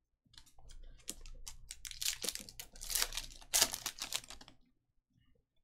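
Foil wrapper of a Topps Merlin Chrome trading card pack being torn open and crinkled by hand, a dense run of crackles that stops about four and a half seconds in.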